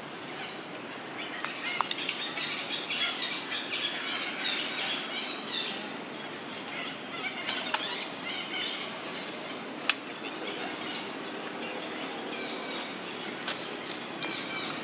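Rustling of dry leaf litter as a macaque mother shifts about with her baby clinging to her, over a busy outdoor background of many small chirps. A few sharp clicks come about halfway through.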